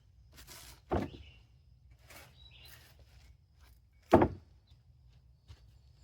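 Two sharp knocks, about a second in and a louder one about three seconds later, with small clicks of parts being handled between them, as the travel motor is worked on during a seal replacement.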